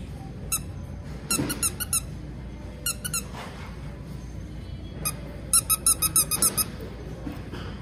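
Squeaker inside a plush dog toy squeezed by hand, giving quick runs of short, high squeaks: a few near the start, a few around three seconds in, and a longer run of about eight squeaks past the middle.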